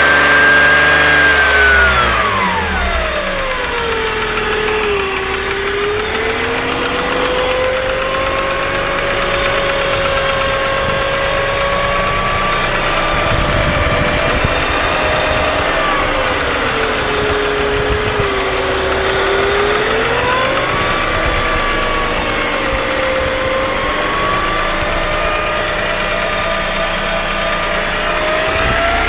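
BMW M54B22 2.2-litre inline-six running with a whining tone from near the intake manifold that follows engine speed. It falls as the revs drop about two seconds in, then wavers near idle with small dips and rises. The owner cannot place the noise and wonders whether it is tied to the vacuum-leak and lambda fault codes the car keeps logging.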